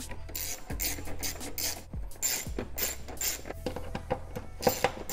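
Small hand ratchet with a T30 Torx bit driving bolts home, heard as runs of short rasping click strokes, a few a second, over background music.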